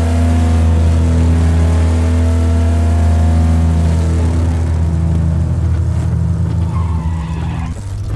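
Truck engine droning steadily: a loud low hum with a slowly wavering higher tone on top. It breaks off abruptly near the end.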